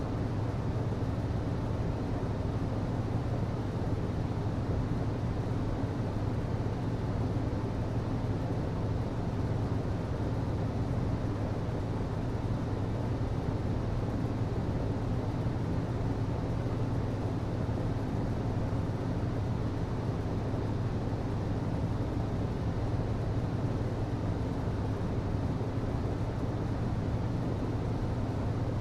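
HVAC system running steadily: a constant low mechanical hum with a rushing air noise, unchanging throughout.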